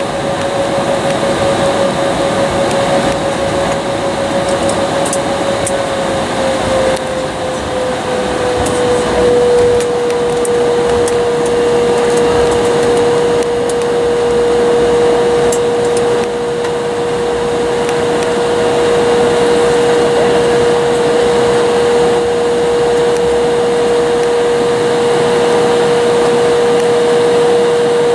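Cabin noise of an Embraer E-175 taxiing, with its General Electric CF34 turbofans at low power: a steady hiss with a steady whine that drops slightly in pitch about six to nine seconds in and then holds.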